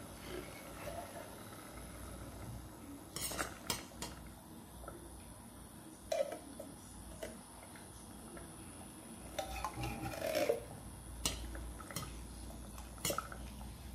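Metal spoon scraping and clinking against a tin can and a stainless steel pot while thick condensed cream of chicken soup is scooped out of the can. A few sharp clinks come about three to four seconds in and again in the last few seconds.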